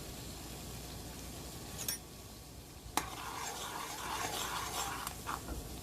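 Spoon stirring boiling tea in a pot: a couple of metal taps, then about two seconds of scraping and clinking against the pot, over the steady hiss of the boil.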